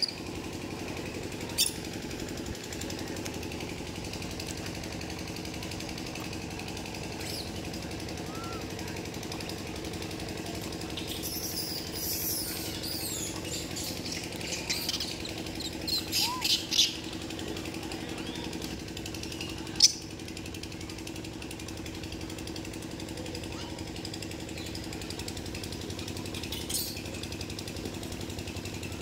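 A steady mechanical drone with a fast, even pulsing rattle, like a motor or machine running, throughout. A few sharp clicks, and a spell of high squeaky calls around the middle.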